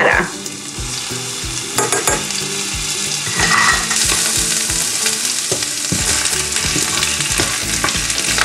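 Garlic and ginger sizzling in hot oil in a frying pan. The sizzle grows louder from about three and a half seconds in, as pak choi leaves go into the pan and are stirred.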